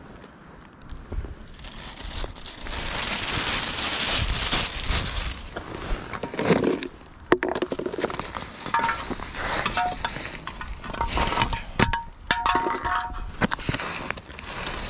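Plastic litter and a trash bag rustling and crinkling as they are handled, with scattered clinks and knocks and footsteps on concrete; a few brief squeaky tones come in during the second half.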